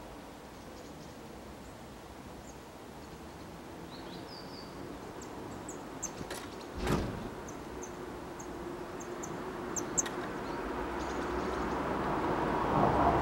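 Tits giving short, high chirping calls scattered through, with one sharp knock about seven seconds in. Traffic noise from a passing vehicle swells near the end.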